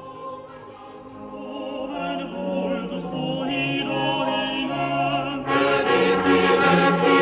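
Classical choral and orchestral music: voices hold long notes with vibrato over the orchestra, swelling louder, with a fuller, louder entry about five and a half seconds in.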